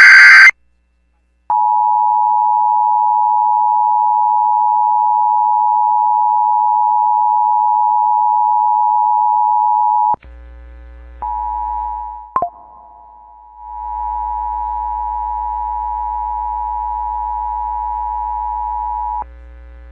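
The last screeching data burst of an Emergency Alert System SAME header ends about half a second in. The steady two-tone EAS attention signal (853 and 960 Hz) follows for about nine seconds. After a cut, a quieter recording of the attention signal plays over mains hum. It breaks off with a click, then resumes for about five seconds.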